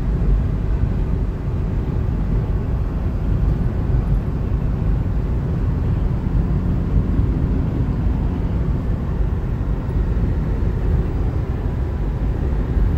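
Steady road noise inside a Hyundai's cabin cruising at highway speed, a low, even rumble.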